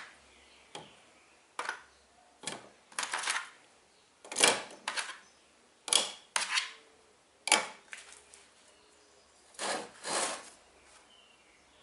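Steel pliers clinking and clacking against the metal crossbar of a pliers stand as they are hung on it one at a time: about a dozen separate sharp metallic clicks, with two softer, duller knocks near the end.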